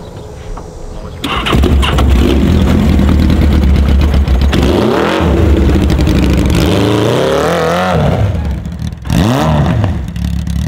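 Small engine of a homemade amphibious multi-wheel ATV catching and starting about a second in, then running loudly and revved up and down several times as the machine drives off.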